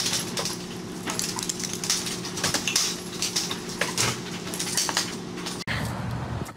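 Metal wire pet pen rattling and clinking in quick irregular knocks as a small dog scrambles against it, over a steady low hum.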